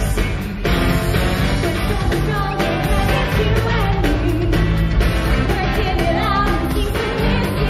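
Upbeat pop song: a singing voice over a full band with heavy, steady bass.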